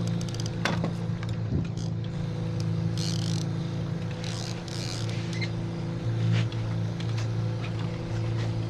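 Boat engine running steadily at low trolling speed, a constant low hum, with a few brief hissy splashes and clicks on top.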